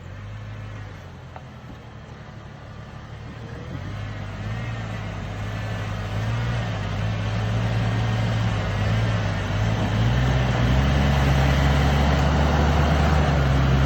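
Off-road vehicle's engine running at low revs, getting steadily louder, with a rising rush of noise over it.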